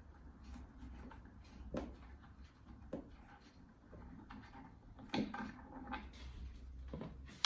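Scattered clicks and knocks of hand tools and metal pedal parts being handled while a pedal is fitted to an electric unicycle, about four distinct knocks over a faint steady low hum.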